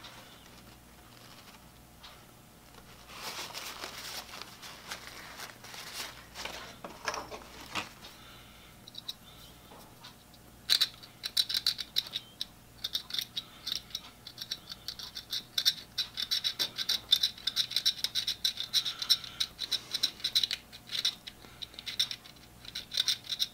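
Paper towel rubbing over small metal chuck parts, then, about 11 seconds in, a steel dental pick scraping and clicking rapidly on the little pieces of a Millers Falls push drill's three-jaw chuck, scraping them clean.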